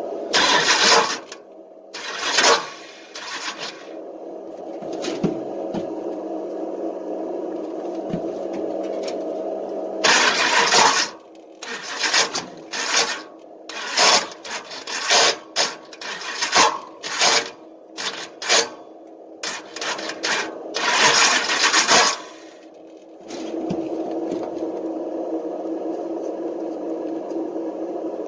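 Starter motor cranking a V8, a steady whine broken by harsh metallic grinding clashes as the starter gear catches on the flex plate's stripped ring-gear teeth, a couple near the start and then a long run of them about twice a second through the middle. The grinding is the sound of the flex plate's teeth being chewed off.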